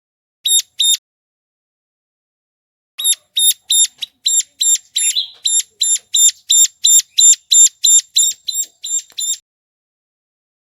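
Ciblek gunung (a prinia) calling, from a bird-luring recording. Two short, high, sharp notes, then after a pause of about two seconds a fast, even series of about twenty such notes, roughly three a second, which cuts off suddenly.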